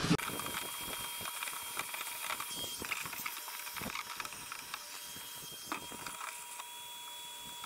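Wet/dry shop vacuum cutting off abruptly at the start, followed by scattered knocks and clatter of its plastic hose and canister being handled and set down in a plastic kayak.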